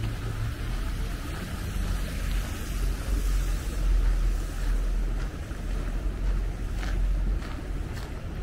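Outdoor city ambience: a steady low rumble of traffic and wind on the microphone, with an even hiss over it.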